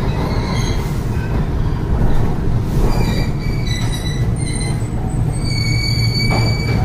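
Iyotetsu 2000 series streetcar, a former Kyoto City tram, heard from inside the car as it runs slowly: a steady low rumble of the running gear, with steel wheels squealing on the rails. There are short squeals about three seconds in and one long, steady, high squeal from about five and a half seconds.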